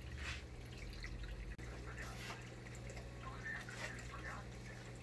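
Faint clicks and rustles as a radio-controlled car chassis and small parts are handled and set down, over a steady low hum.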